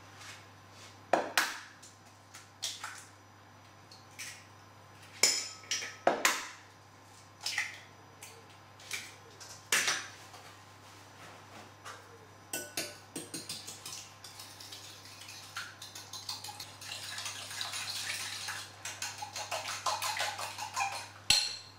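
A few sharp knocks and clinks against a glass bowl as eggs are cracked and the ingredients go in. From about halfway on, a fork whisks cream, sugar and eggs in the glass bowl: rapid clinking taps with a swishing.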